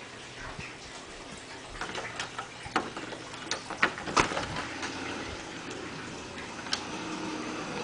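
A string of sharp, irregular clicks and knocks, loudest around the middle, over a faint steady background.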